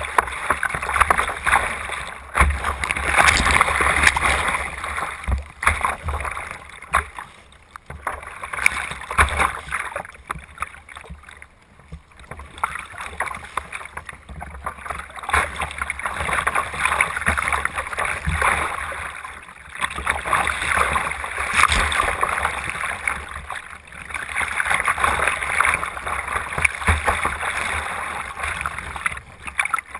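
Choppy tidal-race water rushing and splashing against a sea kayak's hull and deck, swelling and fading in surges every few seconds, with a few sharp knocks.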